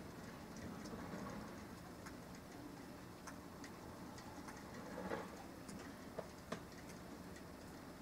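Mixed rain and snow falling, with scattered small irregular ticks as the wet flakes and drops land, over a low steady hiss. A short louder rustle comes about five seconds in, followed by two sharper clicks.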